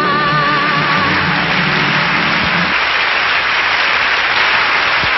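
A singer's final held note, wavering with vibrato, over the band's closing chord. The voice stops about a second in and the chord stops a little past halfway. Audience applause swells underneath and carries on alone.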